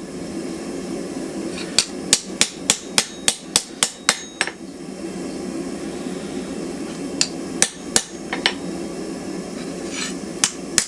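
Hand hammer striking a forged knife blade on an anvil at a grey heat, neatening the edges for final touches: a quick run of about ten sharp strikes, then scattered single blows, over a steady low hum.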